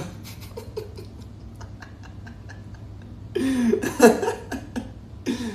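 A man laughing about three seconds in, a short loud burst lasting about a second. Before it comes a string of faint, light clicks.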